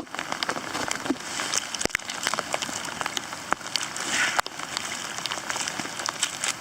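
Rain falling, with many separate drops ticking at irregular moments.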